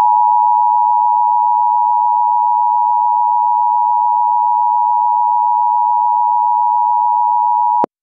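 Emergency Alert System attention signal: two steady tones of 853 and 960 Hz sounded together, held for about eight seconds and cutting off abruptly near the end. It announces that an emergency alert message follows.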